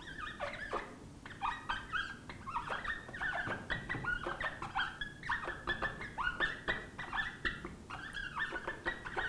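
Whiteboard marker squeaking against the board in quick short strokes as handwriting is written, each squeak a brief high chirp, some sliding up or down in pitch.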